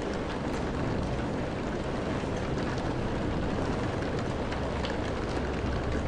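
Rain sound effect: a steady hiss of falling rain with faint scattered drop ticks and a low rumble beneath.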